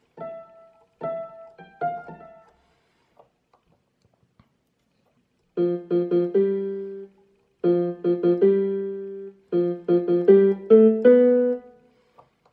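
Casio CT-S300 digital keyboard playing a few notes on its Honky-Tonk piano tone, then a pause with a few faint clicks. From about five and a half seconds in come three short phrases of quick repeated notes on its Octave Piano tone.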